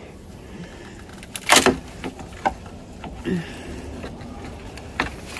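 Pry bar working at a wooden deck board fastened to the house wall: a few sharp knocks and cracks of metal on wood, the loudest about a second and a half in.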